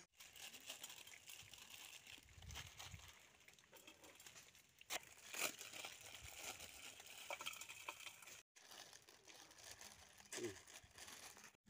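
Plastic instant-noodle packets being torn open and crinkled by hand, a faint crackling with a few sharp clicks.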